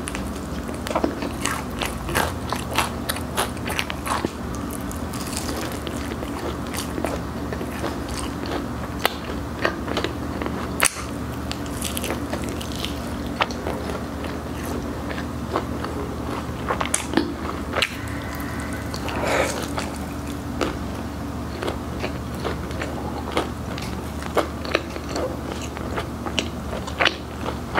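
Close-miked biting and chewing of crispy yangnyeom Korean fried chicken, with irregular crunches of the fried skin throughout, over a faint steady low hum.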